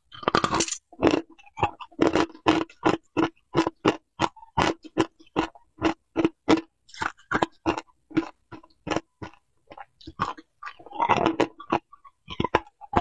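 Hard ice chunks being bitten and chewed close to a clip-on microphone: a quick run of sharp, loud crunches, about two to three a second. Near the end comes a longer rattle as more ice is picked from the steel bowl.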